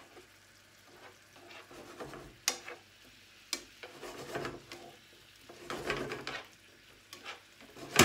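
Kitchen tongs clicking and scraping against a frying pan as marinated beef slices are moved about, with a faint sizzle of the meat frying. Several sharp clicks stand out, one near the end the loudest.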